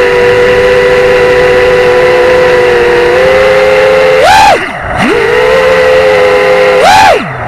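FPV quadcopter's motors and propellers whining at a steady pitch, picked up loud and close by the onboard camera. Twice, about four seconds in and near the end, a throttle punch sends the whine sharply up before it drops steeply low and climbs back to a steady whine.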